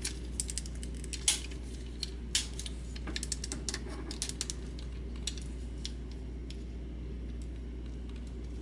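Hard plastic parts of a Transformers Astrotrain figure clicking and clattering as they are handled and folded during transformation: a run of small clicks, busiest in the first half, with the sharpest snaps about one and two seconds in.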